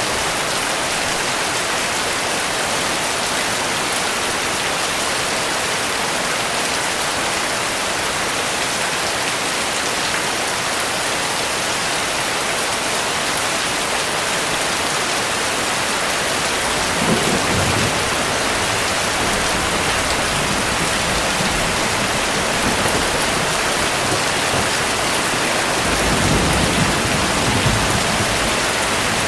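Heavy rain falling steadily, a dense even hiss. A low rumble of thunder rolls in about halfway through, and a longer one comes near the end.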